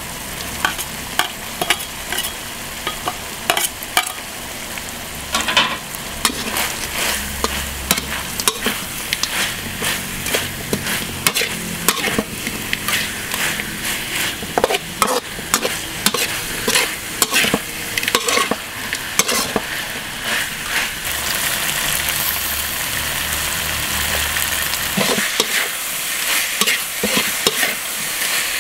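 Chopped frog meat with chillies sizzling in oil in a steel wok while a metal spatula stirs and scrapes, clacking against the pan in irregular strokes. The sizzle grows louder about three-quarters of the way through.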